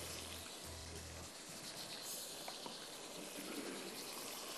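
Tomato chutney with vinegar and sugar simmering in a wok on a gas hob: a faint, steady hiss with a few small ticks.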